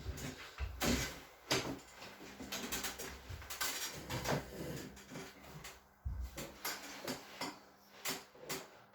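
Irregular rustling, rubbing and light knocks of a person shifting position on a treatment table.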